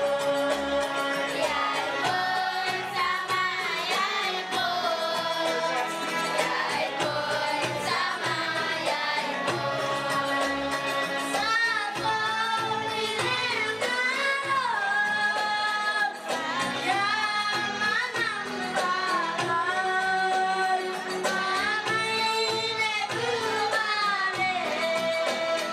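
A girl singing a solo melody into a microphone, with long held notes that bend and waver in pitch.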